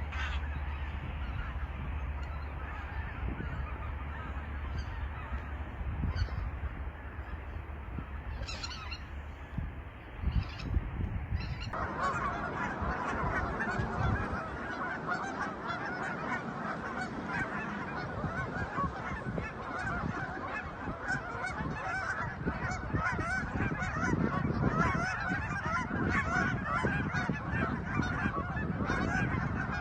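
A flock of wild geese honking continuously, many birds calling over one another. About twelve seconds in the sound switches abruptly to a louder, denser chorus of honks, and a low steady hum under the first part stops.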